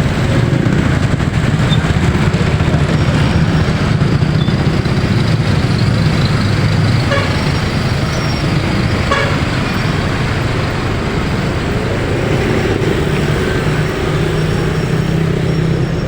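Motor vehicle engine running steadily on the road, with two short horn beeps about seven and nine seconds in.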